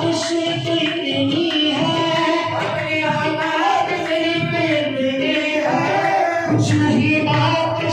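Qawwali: voices singing a devotional melody over tabla accompaniment.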